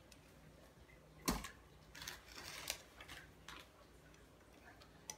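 Kitchen tongs clicking as catfish steaks are picked off a plate and placed in the pot: one sharp clack about a second in, a few lighter clicks a second later, and one more near the end.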